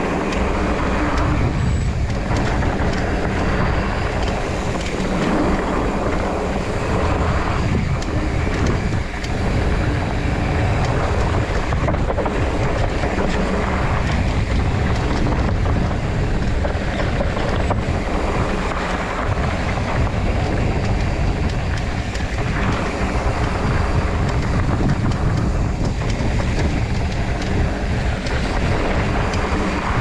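Steady wind rushing over an action camera's microphone during a fast mountain-bike descent, mixed with the tyres rolling over a dirt trail.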